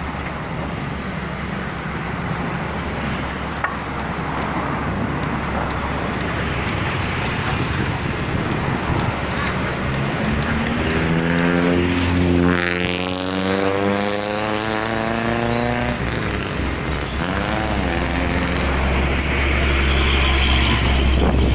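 Heavy diesel engine running steadily. From about ten seconds in, a pitched tone with several overtones rises and then holds for several seconds before dropping away, followed by a short rise-and-fall near 17 seconds.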